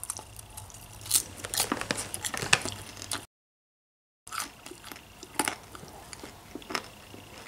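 A person crunching and chewing a mouthful of popcorn: irregular crisp crunches, broken by about a second of dead silence midway.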